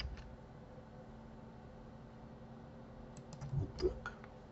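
Computer keyboard keys tapped while working in 3D software: a couple of clicks at the start, then a quick cluster of several key presses about three to four seconds in, over a faint steady hum.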